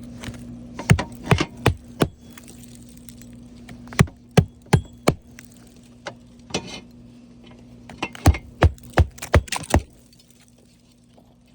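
Hammer driving roofing nails into asphalt shingles: loud sharp blows in bursts of three to six strikes, with pauses between bursts.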